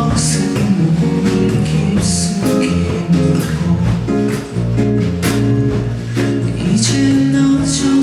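Live acoustic band performance: a man singing into a microphone over acoustic guitar.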